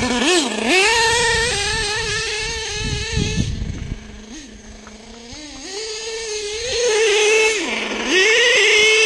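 Nitro RC truck's small two-stroke glow engine driving in full-throttle runs, its high buzzing note dropping to idle between runs and rising again. It is quieter for a couple of seconds around the middle, and drops to idle just before eight seconds in before revving up again.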